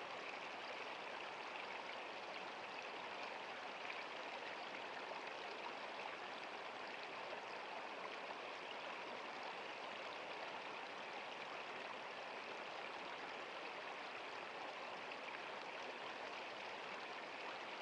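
Small stream of water flowing steadily, a continuous even babble.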